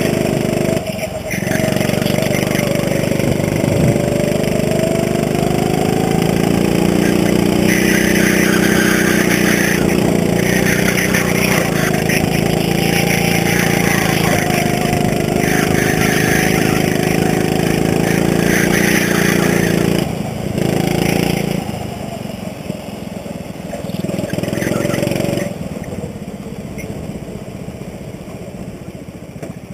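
Go-kart's small petrol engine running hard at high revs around the track. The engine note breaks off briefly about 20 seconds in as the throttle is lifted, comes back weaker, then drops away after about 25 seconds as the kart slows toward idle.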